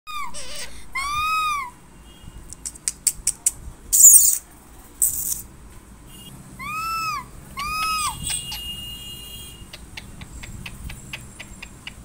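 Rose-ringed parakeet calling: short arched whistled notes, two near the start and two more around seven to eight seconds in, with two harsh screeches about four and five seconds in, and runs of sharp clicks between and after them.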